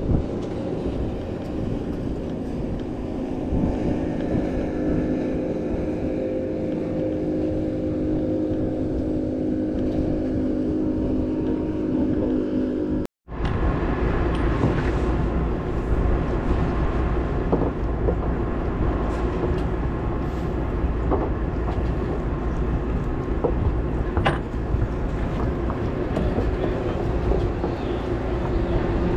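Fishing boat's engine running steadily under wind and water noise, with a low drone of several held tones. The sound cuts out for a moment about halfway through, then the drone carries on with more low rumble.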